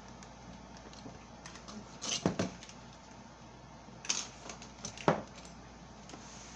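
A few short, sharp clinks and knocks, a cluster about two seconds in, then single ones about four and five seconds in: straws going into tall glasses of ice and the blender jar being handled at the counter.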